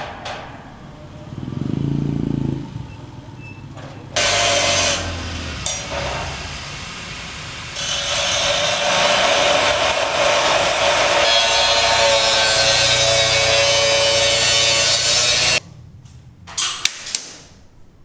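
A handheld power tool working a steel frame, a loud harsh running noise with a steady pitched hum in it. It starts abruptly about four seconds in, grows louder about halfway through and cuts off abruptly near the end. A few sharp knocks follow.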